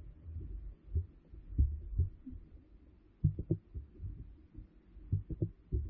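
Muffled, irregular low thumps and rumble of water moving against an underwater camera housing, heard from below the surface.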